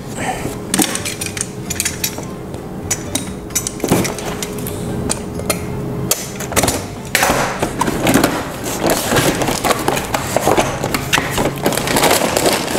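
A cardboard box being opened: a utility knife slitting it and the cardboard flaps scraped and pulled apart. Near the end, the plastic bags of building-block pieces inside crinkle as they are grabbed and pulled out, in a dense run of crackles and scrapes.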